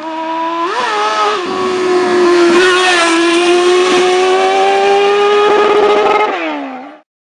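Kawasaki ZX-6R's inline-four engine revving hard. It climbs about a second in, holds high and steady for several seconds, then drops in pitch and fades, cutting off abruptly near the end.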